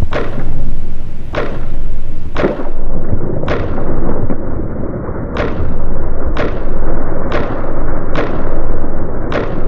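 Soundtrack music built on heavy drum hits, about one a second, each ringing out. About two and a half seconds in, the sound turns muffled as its treble is cut.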